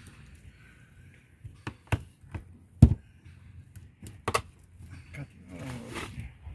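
Knife chopping a kingfish (seer fish) into steaks on a hard floor: a series of sharp, separate knocks and cracks, the loudest about three seconds in.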